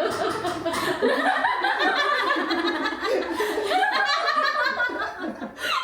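A group of people laughing together, overlapping chuckles and giggles with bits of chatter.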